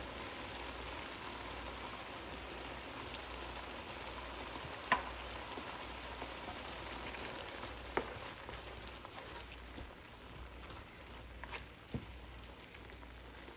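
Steady low sizzle of diced chayote, shrimp and sliced carrots cooking in a little liquid in a ceramic nonstick pan. A few light clicks, about three in all, as a wooden spatula touches the pan.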